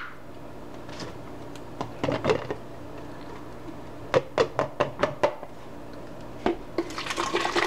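Plastic blender jar knocking and clicking as it is gripped and lifted off its base, with a quick run of sharp knocks about four seconds in. Near the end the thick blended puree begins pouring from the jar into a plastic pitcher.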